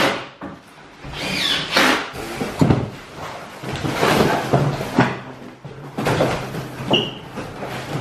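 Plastic-wrapped couch sections being handled and set down: plastic wrap rustling, cardboard scraping and several knocks, with a brief high squeak about seven seconds in.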